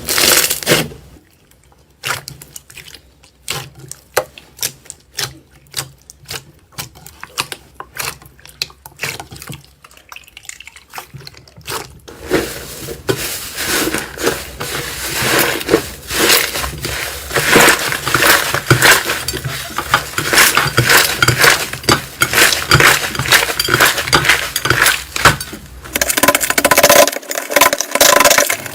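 Slime being handled and squished: irregular sticky clicks and crackles, sparse for the first dozen seconds, then dense and wetter, with a change of texture near the end.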